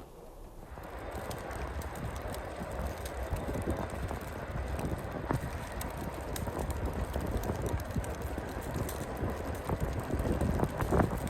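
Wind gusting over the microphone in a heavy snow squall, starting suddenly about a second in, with a low rumble and a dense crackle of small ticks.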